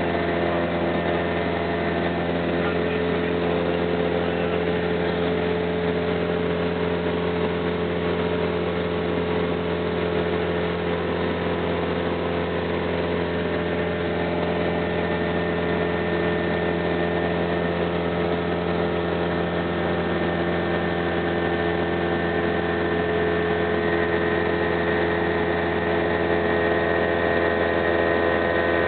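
Cessna 172's piston engine and propeller running steadily in flight, heard from inside the cabin as an even drone with a constant hum of tones over rushing air noise. It grows slightly louder near the end.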